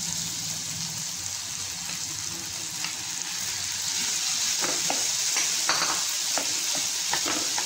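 Mixed vegetables and steamed rice sizzling in a hot non-stick pan, a steady hiss. In the second half, light scrapes and knocks as a slotted wooden spatula spreads the rice over the vegetables.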